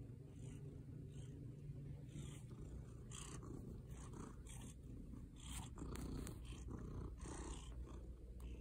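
Domestic cat purring steadily, heard close up, with brief scratchy noises every second or so.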